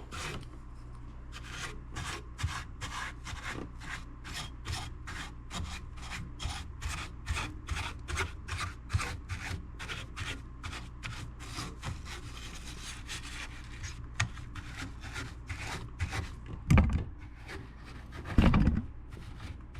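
A brush scrubbing a stereo's circuit board in quick, even strokes, about two to three a second, lifting leftover grime and drying off the cleaning alcohol. Two louder knocks come near the end.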